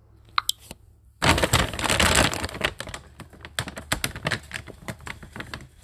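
Handling noise of a phone being moved about in the hand: a loud burst of rustling about a second in, then a run of irregular clicks and taps, with a faint short squeak before it.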